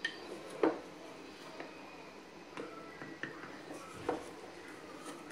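A spoon scooping salt out of a glass jar: a few scattered light taps and scrapes against the glass, the sharpest one under a second in.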